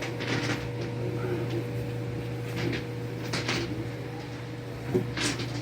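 Steady low hum with a few short hissing noises and one sharp click about five seconds in.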